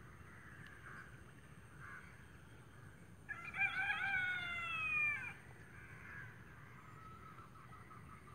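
A rooster crowing once, a single call of about two seconds that starts about three seconds in and falls slightly in pitch at the end.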